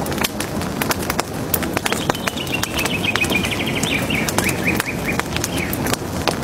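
A bird sings a rapid trill of short notes, starting about two seconds in and lasting about three and a half seconds, over a steady low rumbling murmur scattered with sharp clicks.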